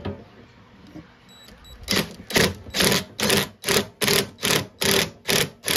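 Cordless DeWalt impact driver tightening a hose clamp, running in an even string of short mechanical bursts, about two and a half a second, that begins about two seconds in.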